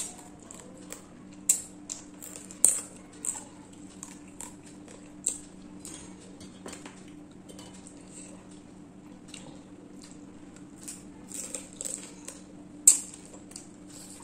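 Close-up eating sounds of a jumbo prawn: irregular sharp clicks and crackles as its shell and legs are broken apart and chewed, with a few louder cracks, the loudest near the end. A steady low hum lies underneath.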